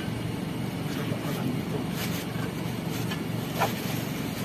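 Steady low rumble of an idling vehicle engine, with a few light knocks as gear is packed.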